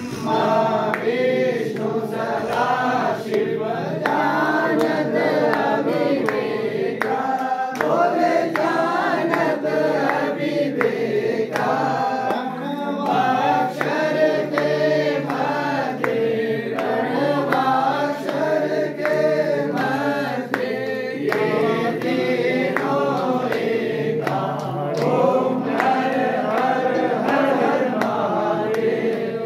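A group of voices singing a Hindu aarti hymn to Lord Shiva, steady and continuous, with sharp strikes recurring through it.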